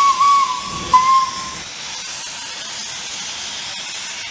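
Steam locomotive whistle ending its long blast, then one short toot about a second in, followed by a steady hiss of escaping steam.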